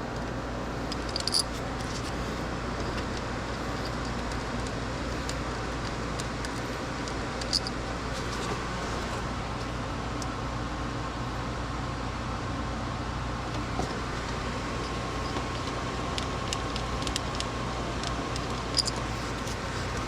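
A few light metallic clinks, about a second in, about seven and a half seconds in and near the end, over a steady background hum.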